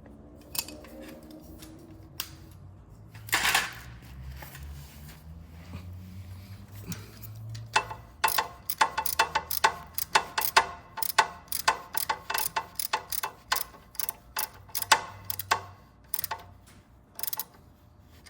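Ratchet wrench clicking in a quick, steady run as it turns the oil drain plug in the freshly tapped, stripped drain hole of a Harley Sportster's primary cover. The plug does not tighten: the threads are still too loose to hold.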